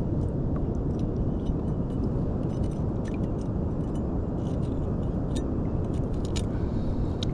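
Steady low rumble of wind and ocean surf, with scattered light clicks and scrapes from a cracked-open sea urchin's shell and spines being handled while its insides are cleaned out.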